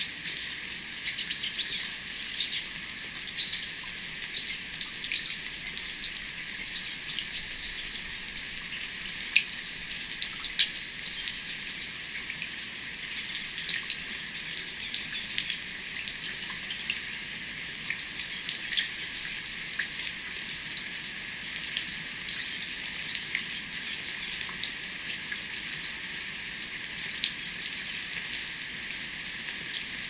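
Rain falling: a steady, thin high hiss with many separate raindrops ticking through it at uneven intervals.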